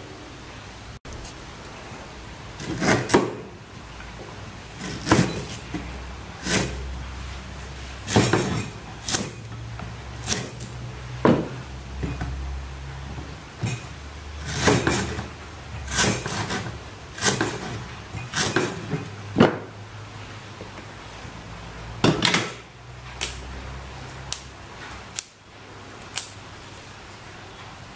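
A large kitchen knife chopping lemongrass stalks on a wooden cutting board: single chops, one every second or so, with a couple of short pauses.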